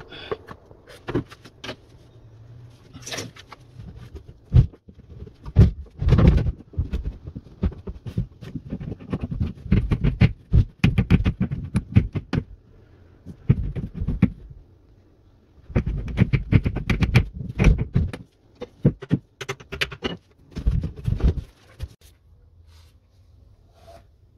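CPVC plastic pipe and fittings being handled and fitted together: irregular sharp clicks, taps and knocks, many in quick clusters, dying down near the end.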